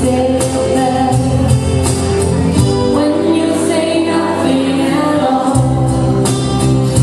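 Live acoustic band: acoustic guitars playing with a woman singing. The low bass notes drop out about three seconds in and come back about two seconds later.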